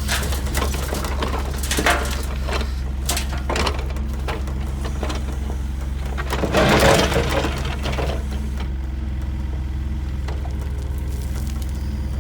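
Diesel engine of heavy construction machinery running steadily, with scattered knocks and clanks and a louder rattling rush lasting about a second, about seven seconds in.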